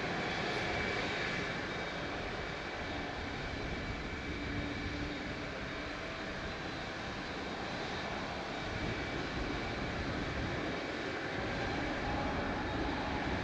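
Rolls-Royce Trent 800 turbofans of a Boeing 777-200ER at taxi power: steady jet engine noise with a faint high whine.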